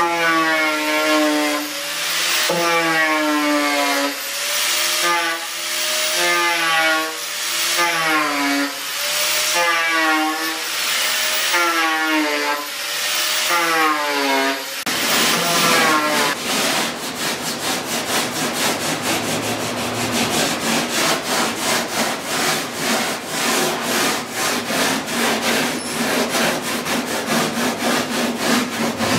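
Side grinder with a 100-grit sanding disc cutting into foam. Its pitch sags and recovers about once a second as it bites and comes off. About halfway through it gives way to a hand sanding block rasping rapidly back and forth across the foam.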